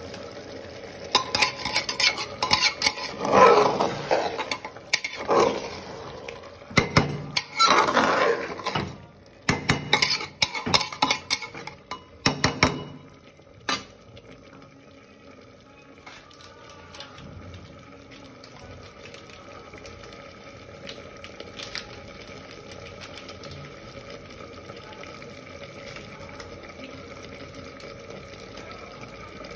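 A metal spoon scraping and clattering against an aluminium pressure cooker as mutton and onions are stirred, in loud bursts through the first half. Then only a quieter, steady sizzle and hiss from the pot.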